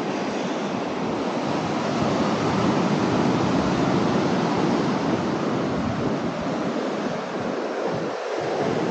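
Steady rush of surf breaking on a sandy beach, with some wind buffeting the microphone.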